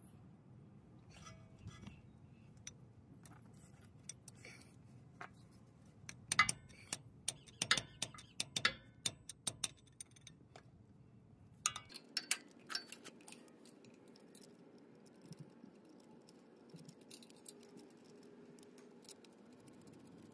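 Steel bearing-puller parts clinking and tapping against the front axle housing bore and its old needle bearing: a dense run of sharp metallic clicks about six to ten seconds in, and a few more around twelve seconds.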